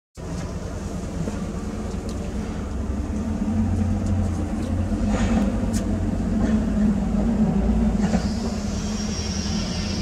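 John Deere 317 skid steer's diesel engine running steadily, a little louder through the middle. A high whine joins about eight seconds in.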